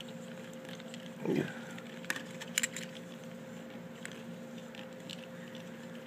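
Light clicks and ticks as the plastic disc wheels and axle of a mousetrap-powered car are turned by hand, winding its string onto the axle, with a short low sound about a second in and a faint steady hum underneath.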